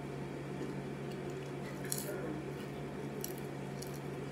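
Potato chips crunching as they are chewed, a few short sharp crunches over a steady low hum.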